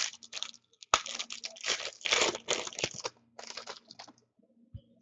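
Foil trading-card pack being torn open, its wrapper crinkling in a quick run of crackles for about three seconds before it stops.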